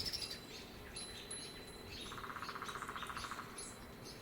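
Wild birds calling: scattered short, high chirps, with a rapid trill lower in pitch lasting about a second and a half, starting about two seconds in.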